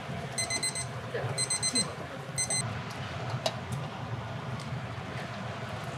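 An appliance's electronic beeper sounds the end of its cycle. Quick groups of high beeps repeat about every 0.7 s and stop about two and a half seconds in, over a steady low hum.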